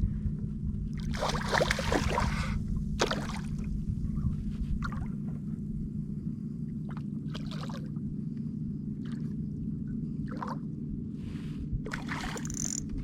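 Water sloshing and gurgling around a kayak, with scattered short splashes and knocks that are most frequent in the first few seconds and again near the end.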